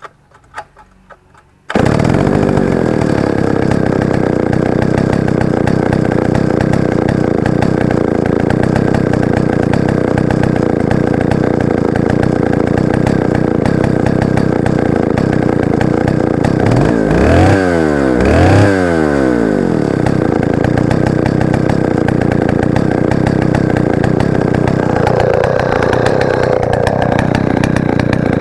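Stihl 090 AV chainsaw's 137 cc two-stroke engine. After a few clicks it starts suddenly about two seconds in and runs steadily. About two-thirds of the way through it is revved up and back down twice in quick succession.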